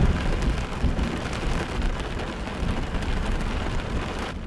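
Heavy thunderstorm rain drumming on a car's roof, heard from inside the car, with a long low roll of thunder underneath.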